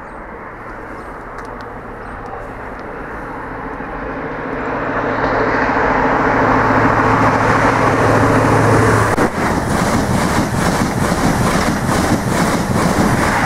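InterCity 125 High Speed Train passing through at speed: the diesel power car's steady engine note grows louder as it approaches, then about nine seconds in the coaches go by with a rapid, regular clatter of wheels over the track.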